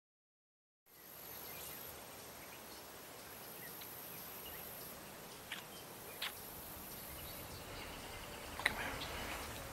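Silence for about a second, then faint outdoor ambience: a steady hiss of open-air noise with a thin high whine and a few brief chirps, typical of birds or insects in a field.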